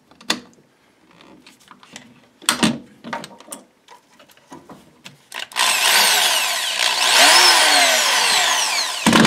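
Handling knocks, then about halfway through a Harbor Freight corded close quarters drill, its gearbox freshly greased, runs loud for a few seconds, its pitch rising and falling as the variable-speed trigger is squeezed and eased.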